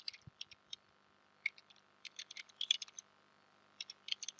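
Computer keyboard typing: faint, irregular clusters of key clicks with short pauses between them.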